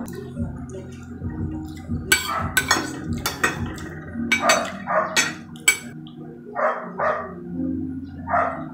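Metal fork and spoon clinking and scraping on a ceramic plate, a quick run of sharp clinks in the middle, followed by a few short, duller sounds near the end.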